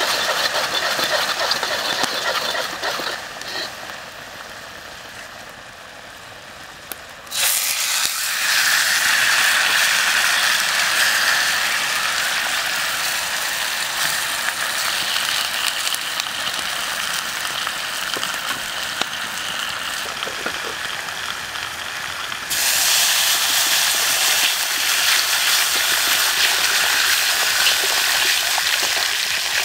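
Hot sauce sizzling in a steel wok, with a metal ladle scraping round the wok at the start. The sizzle fades for a few seconds, comes back suddenly louder about seven seconds in, and steps up again about two-thirds of the way through as a whole pig head fries in the sauce.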